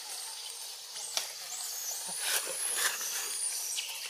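Forest ambience: a steady high insect hiss with a few short, high-pitched sliding chirps and sharp clicks about midway.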